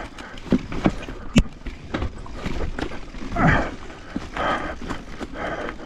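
Mountain bike rolling down over rock: sharp knocks and rattles as the tyres and frame hit the rock, with a louder rough rushing burst about three and a half seconds in and more bursts near the end.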